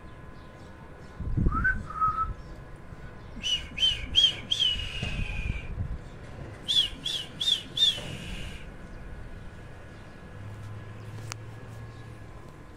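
A person whistling to call the cats: one short rising whistle, then two quick runs of about four high chirps each.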